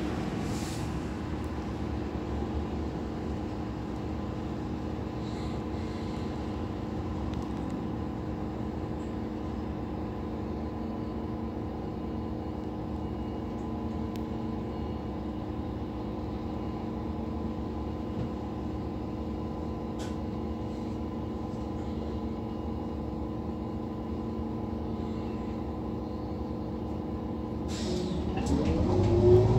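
Interior of an Irisbus Citelis 12 city bus with its compressed natural gas engine idling steadily with a constant hum. Near the end the engine speeds up with a rising drone as the bus pulls away.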